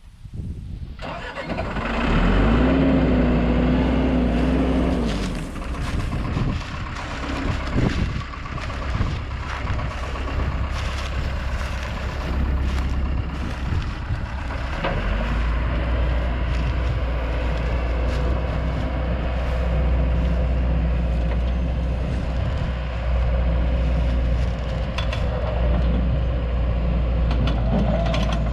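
An engine starts about a second in and then runs steadily, with a brief held whine early on and a rise in level around halfway through.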